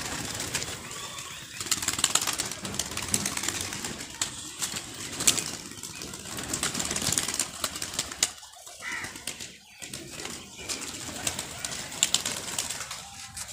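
A flock of domestic pigeons cooing and flapping their wings, with many short rustles and clicks as they move about and take off.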